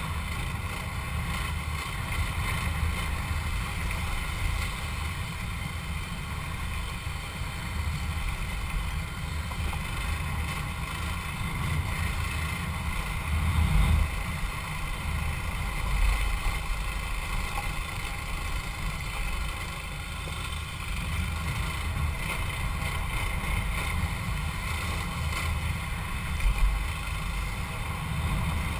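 Motorcycle engine running steadily on a ride along a dirt road, heard through heavy wind buffeting on the on-board microphone, with a few brief louder moments.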